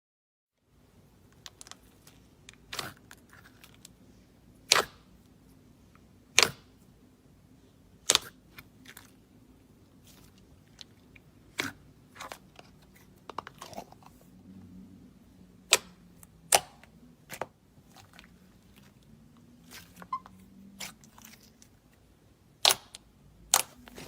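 Thick glossy slime being pressed and worked by hand, giving sharp clicks and pops at irregular intervals, roughly one every second or two, over faint quiet squishing.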